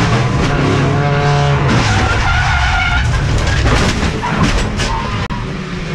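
Race car's engine heard from inside the cockpit, its steady note breaking up about one and a half seconds in as the tyres skid, with a run of sharp clicks and knocks near the end.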